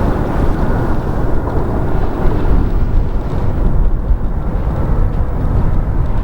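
CRJ-200's two rear-mounted turbofan jet engines running in a loud, steady roar with a deep rumble and a faint whine; the higher part of the sound fades about halfway through as the jet moves away.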